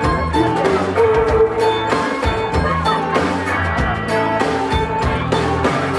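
Line-dance music with a steady drum beat.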